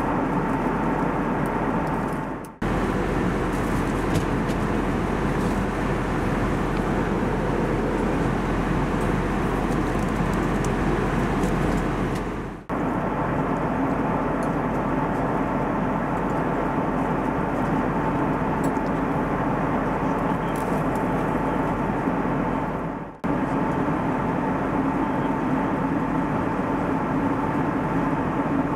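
Airbus A320neo cabin noise in flight: a steady rush of airflow and engine noise with an even hum and a mid-pitched whine from the Pratt & Whitney PW1100G geared turbofans. It breaks off briefly three times, about ten seconds apart, and comes back unchanged each time.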